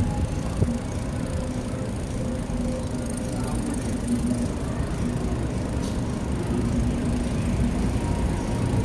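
Steady low rumble of a bicycle rolling over a concrete alley, with wind buffeting the microphone.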